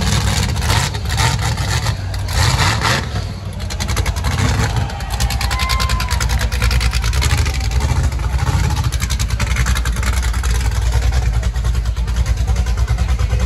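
Vehicle engine running steadily and loud, with a dense low rumble and rapid firing pulses. A brief high tone sounds about six seconds in.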